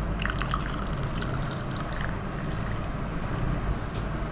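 Herbal decoction (kashayam) poured from a pan through a strainer into a glass, a steady trickle of liquid, with a few light clicks near the start.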